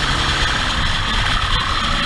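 Motorcycle engine running steadily at road speed, heard from the rider's own bike, with a low, uneven wind rush over the helmet camera.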